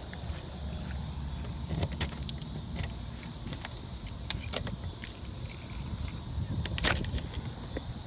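Light clicks and rustling of handling over a steady low rumble, with one sharp click about seven seconds in.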